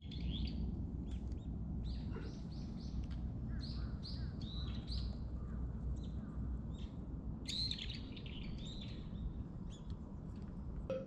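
Small wild birds chirping: runs of short, clear high notes repeated about twice a second, with a denser flurry of calls around seven to eight seconds in, over a steady low rumble.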